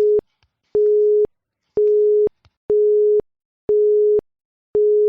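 Countdown timer sound effect: a steady mid-pitched electronic beep about half a second long, repeating about once a second, with faint ticks between the beeps.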